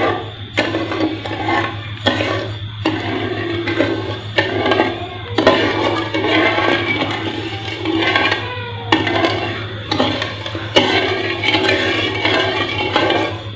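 Sugar syrup with green cardamom pods swishing and sloshing as a metal slotted spoon stirs it round a steel wok, dissolving the sugar into the water; the swishing pauses briefly several times. A steady low hum runs underneath.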